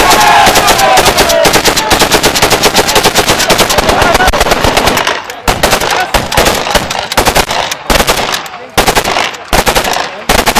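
Rapid, repeated bursts of automatic gunfire, many shots a second, from celebratory firing into the air. The firing pauses briefly about halfway through and again near the end.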